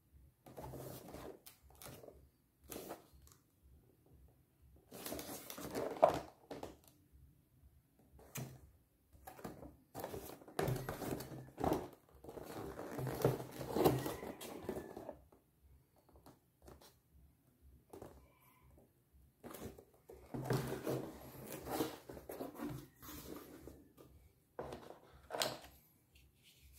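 A cardboard pistol box being handled and opened, with irregular rustling, scraping and soft knocks of the cardboard and its packaging.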